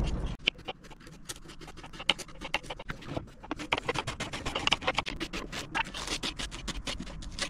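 Raw vegetables being prepared by hand in a kitchen: quick, irregular scraping clicks, several a second.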